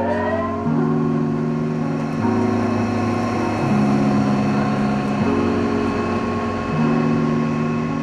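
Background music: held synthesizer chords that change about every second and a half, over a steady high tone.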